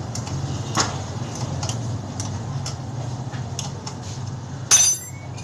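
Light clicks and taps of hand tools and metal parts on a children's bicycle's front fork and brake, with one loud metallic clank that rings briefly near the end, over a steady low hum.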